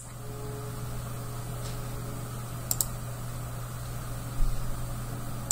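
Two quick computer clicks in close succession a little past halfway, over a steady low electrical hum and hiss.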